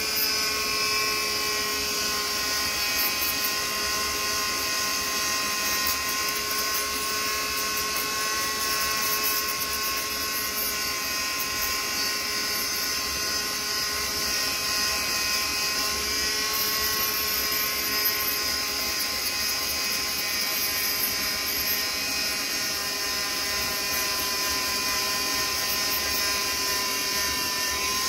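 A small electric power tool's motor running steadily at constant speed with a high whine and a hiss, with no change in load.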